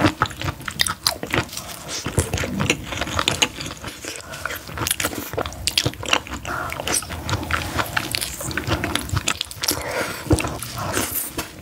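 Close-miked eating of a crispy, sauce-coated fried piece: biting and chewing with many sharp, irregular crunches.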